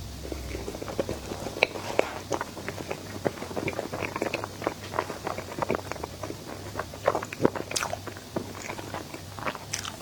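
Close-miked eating of a dessert: biting and chewing, with a dense, irregular run of small sharp crackles and clicks.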